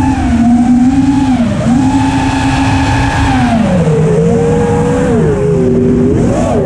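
FPV racing drone's electric motors and propellers whining, the pitch sliding up and down with the throttle over a rush of air. The pitch climbs about two seconds in, holds for a moment, then drops back.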